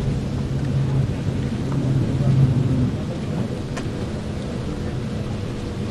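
Steady low rumble with a droning hum that is loudest in the first half and fades out about three seconds in.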